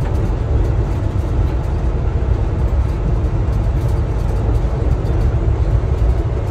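Amtrak passenger coach running at speed, heard from inside the car: a loud, steady rumble with a rushing noise over it.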